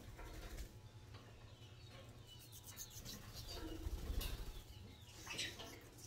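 Soft rustling and small clicks from a sun conure moving about on a person's shoulder, with a louder stretch of shuffling about four seconds in and a short sharp sound near the end.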